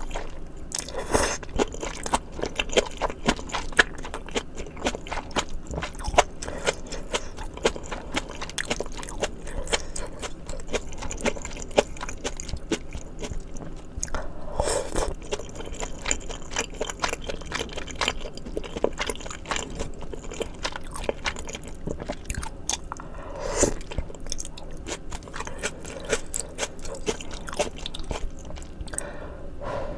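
Close-miked eating of spicy malatang: steady chewing and crunching with small wet clicks, and a few brief slurps of noodles or broth.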